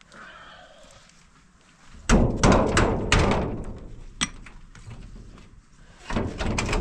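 A run of loud, heavy knocks and thuds, about four in two seconds with some ringing after them, then more knocking from about six seconds in.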